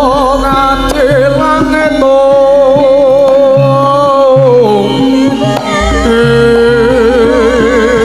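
Javanese gamelan music with a voice singing long, wavering held notes over short low drum strokes.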